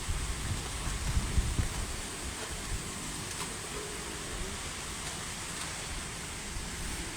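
Strong wind buffeting the microphone: a gusty low rumble over a steady hiss, strongest in the first second or two.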